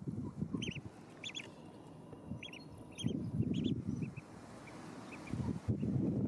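Mallard ducklings peeping: many short, high, arching peeps at irregular intervals, over low rustling close to the microphone that gets louder about three seconds in and again near the end.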